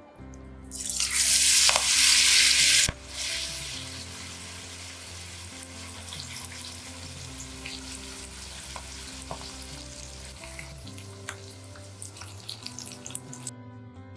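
Spinach pakoras deep-frying in hot oil. A loud surge of sizzling starts about a second in and lasts two seconds, then settles into a steady sizzle with scattered crackles that stops suddenly near the end.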